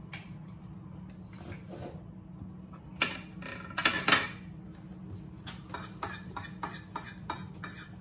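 Knife and fork scraping and clinking on dinner plates while steak is cut and eaten. There are a few louder scrapes about three seconds in, then a run of quick, light clinks near the end.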